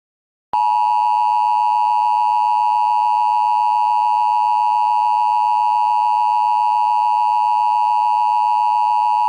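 Emergency Alert System attention signal: a loud, steady two-tone electronic alarm that starts about half a second in and holds at one unchanging pitch.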